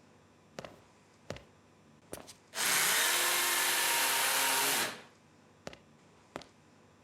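Bosch BCS101GB cordless upright vacuum cleaner switched on for about two seconds: its motor spins up into a loud, steady whoosh and winds down when it is switched off. Sharp clicks of the switch and handling come before and after.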